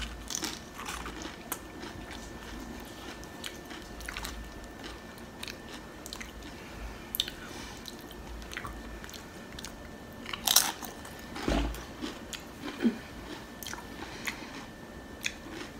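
A person biting and chewing loaded tortilla-chip nachos close to the microphone, with irregular crisp crunches of the chips. The loudest crunch comes about ten and a half seconds in.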